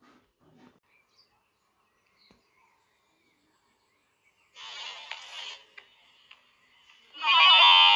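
Edited meme sound effect: mostly silence, then a faint short hiss about four and a half seconds in and a few small clicks. Near the end a loud, buzzing, distorted sound effect with many stacked tones starts abruptly.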